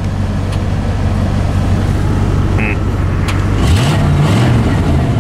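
Pickup truck engine idling steadily while boosting another truck's battery, briefly rising and falling in pitch twice near the end as it is revved.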